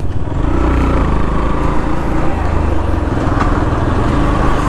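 Motorcycle engine running steadily while riding, with heavy wind rumble on the helmet microphone.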